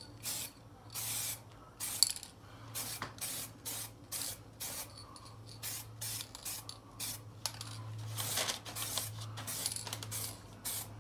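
Aerosol spray-paint can hissing in many short, uneven bursts as a light base coat is dusted onto a brake caliper.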